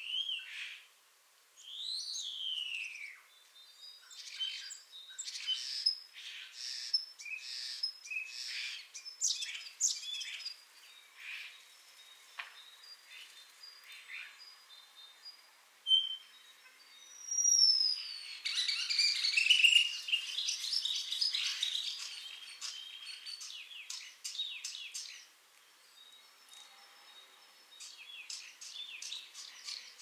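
Common starling singing: a rambling song of whistles that slide up and down, runs of clicking rattles and a loud, dense warbling stretch past the middle, with a short pause before it and rapid clicks near the end.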